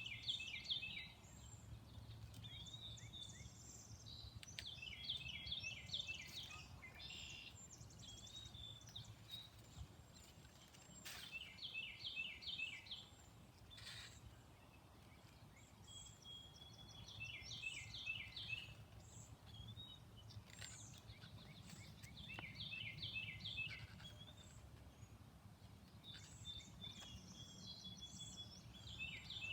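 A songbird sings the same short phrase of four or five quick high notes over and over, about every five or six seconds, with a few thin whistled notes in between. Under it runs a faint steady low outdoor hum, broken by a few sharp clicks.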